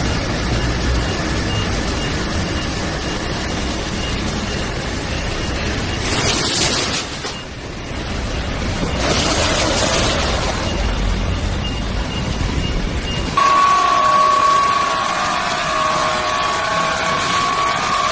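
Sheet-metal processing machinery running with steady mechanical noise, broken twice by brief hissing bursts around the middle. About two-thirds through it changes abruptly to a different machine with a steady whine.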